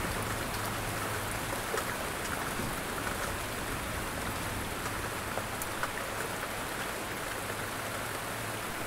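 Steady rain falling: a constant hiss with scattered small drop ticks.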